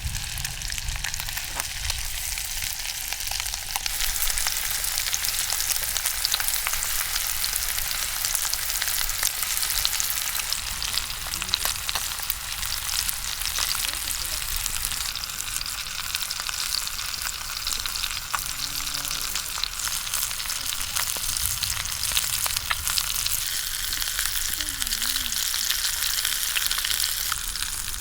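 Food frying in hot oil in a pan: a steady sizzle thick with small crackles.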